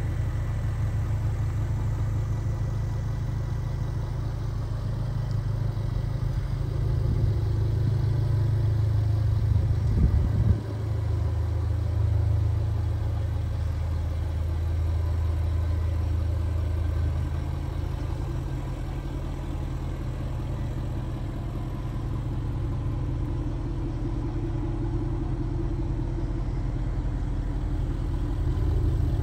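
Jaguar XKR's 5.0-litre supercharged V8 idling steadily through its quad exhaust pipes, with one brief louder burst about ten seconds in.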